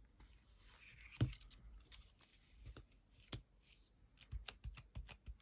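Scattered small clicks and taps from paper and card being handled and pressed down while gluing, with a quicker run of taps near the end.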